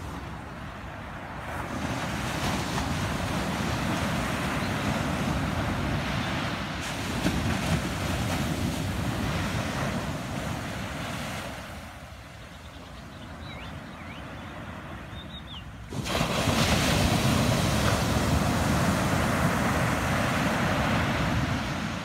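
Small surf breaking and washing up a sandy beach: a steady rushing hiss of foam that swells and ebbs, dropping lower for a few seconds and then coming in suddenly louder about sixteen seconds in.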